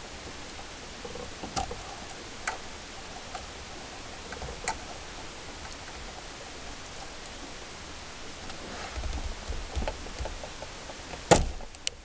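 Light clicks and rustling of hands handling car stereo harness wires, a few scattered clicks over a steady hiss, with one sharp click near the end.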